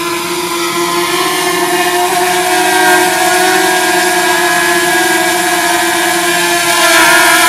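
DJI Mavic Mini drone's four propellers whining steadily in flight: a steady, many-toned hum that grows slightly louder.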